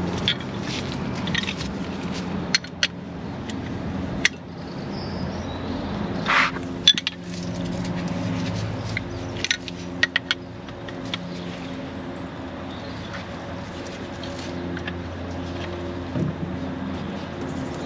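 Metal spanner clicking and clinking against a brake hose fitting as a brake caliper is turned off its flexible hose, with light scrapes between the clicks. A steady low hum runs underneath.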